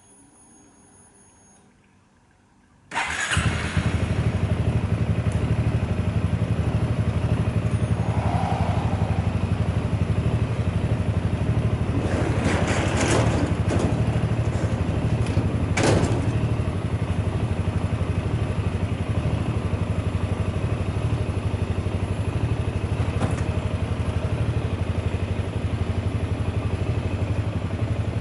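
Kymco Xciting 400i scooter's single-cylinder engine starting about three seconds in, then idling steadily. A few short knocks sound over the idle midway through.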